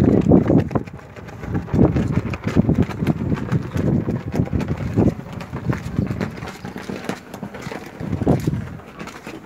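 Footsteps going down rough stone stairs, an uneven series of scuffs and knocks.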